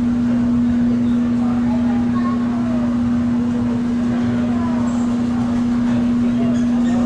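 A steady low hum at one unchanging pitch, like a fan or machine, with faint short chirps or distant voices underneath.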